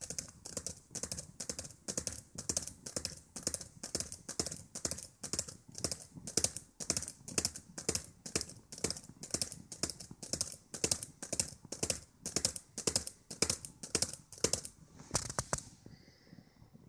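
Keys clicking on a Dell Latitude E7440 laptop keyboard, typed in a steady run of about three presses a second, stopping about fifteen seconds in.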